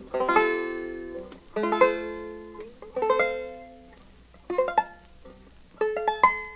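Four-string plectrum banjo playing an F major arpeggio: five F chord inversions, one after another about every second and a half, each picked string by string and left to ring, climbing up the neck toward the 22nd fret.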